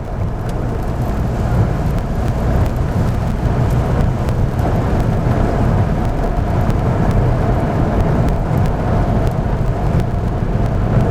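Steady road noise inside a car driving on a wet road: a low engine and tyre rumble with a hiss above it, and faint scattered ticks.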